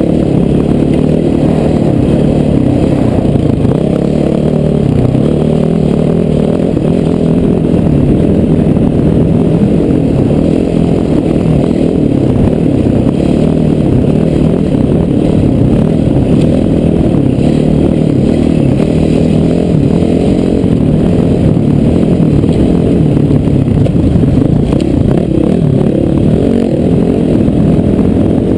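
Honda CRF450R dirt bike's single-cylinder four-stroke engine running hard under load, heard from a helmet-mounted camera, steady and muffled.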